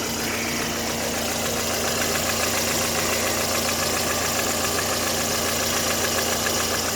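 Lada Granta FL's eight-valve four-cylinder engine idling steadily with a rapid, even ticking knock from the top end, taken for valve knock. The knock persists after new tappets, new valve stem seals and a valve adjustment, with compression and ignition said to be fine, so its cause is unknown.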